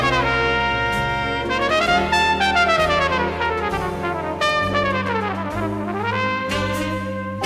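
Flugelhorn soloing in a slow jazz ballad, playing quick runs that sweep down and back up, over chords held by a big band.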